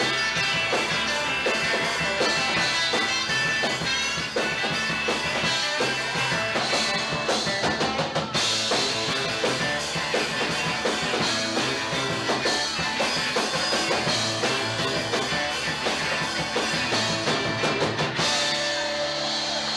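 Live rock band playing: electric guitars, bass guitar and drum kit. Near the end the drumming stops and held notes ring on.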